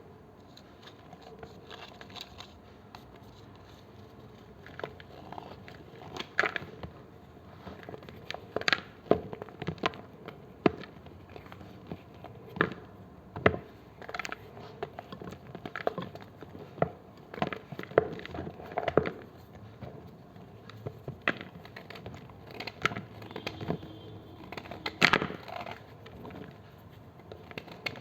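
A knife cutting into blocks of gym chalk, giving irregular sharp crunches and snaps, about one or two a second, the loudest one near the end.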